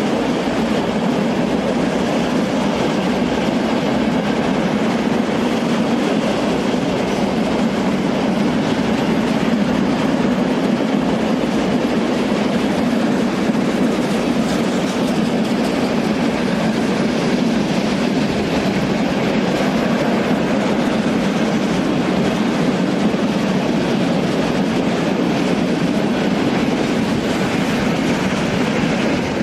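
Long freight train of open freight wagons rolling past close by: a steady, loud rumble of steel wheels on the rails.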